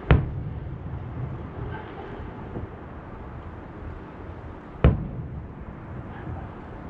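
Distant aerial firework shells bursting: two sharp booms, one right at the start and another about five seconds in, each trailing off in a low rumble.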